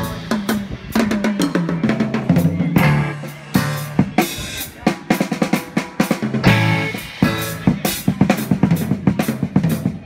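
Live band playing an upbeat song, the drum kit loudest with a steady beat of kick drum, snare and cymbals over a low bass line and other pitched instruments.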